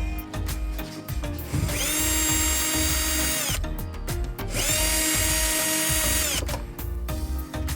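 Cordless drill-driver motor running in two bursts of about two seconds each, spinning up and winding down each time, as it backs screws out of a washing machine's body. Background music with a steady beat plays underneath.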